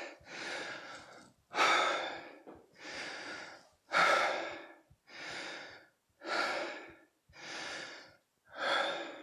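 A man breathing hard after a 30-second high-intensity interval: a breath about every second, alternating louder and softer.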